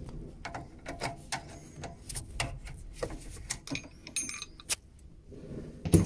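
Pliers clicking and scraping on the metal retaining clips and plastic hydraulic block of an Ariston E Combi Evo boiler as the filter clips are worked free: irregular small metallic clicks and ticks, with a louder knock near the end.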